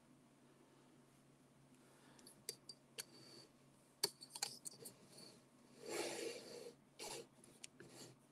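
Faint clicks, taps and rustles of a phone in a small tripod mount being handled and repositioned. Scattered sharp clicks start about two seconds in, and two short, louder rustles come near the end.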